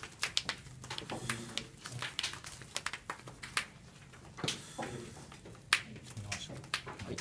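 Scattered sharp clicks and taps of trading cards and sleeves being handled and set down on playmats, over a low murmur of voices in the room.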